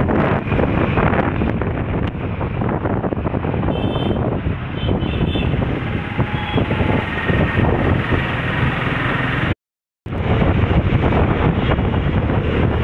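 Wind buffeting the microphone on a moving motorcycle, with road and traffic noise underneath. The sound cuts out completely for about half a second about three-quarters of the way through.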